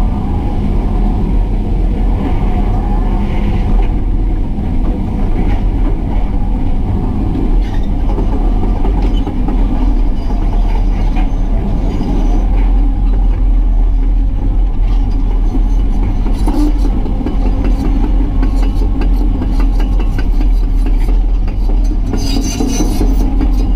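Excavator's diesel engine running steadily under load, with rattling and scraping as the bucket spreads and levels fill material.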